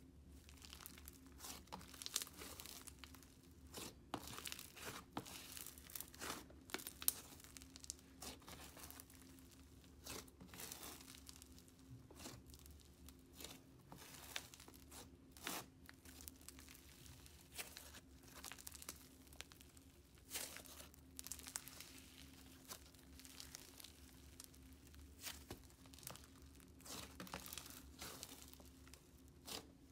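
Hands stretching, tearing apart and squeezing a thick, fluffy slime: quiet crackling and soft tearing as the strands pull apart, coming in irregular bursts.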